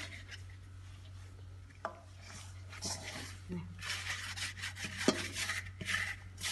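Hands in plastic gloves kneading soft bread dough in a stainless steel bowl: dough rubbing and scraping against the metal, busier in the second half, with a few sharp knocks against the bowl.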